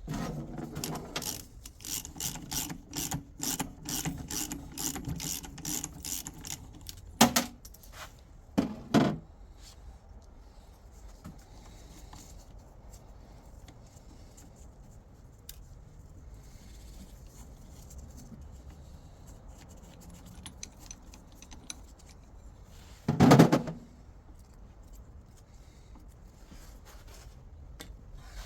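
Metal parts and tools clinking and rattling, about two to three clicks a second for several seconds, then three louder knocks spread out, two close together and one much later.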